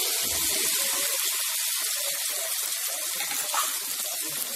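Hot tomato-onion masala sizzling in a pan as cubed kohlrabi and potato are tipped in: a steady frying hiss.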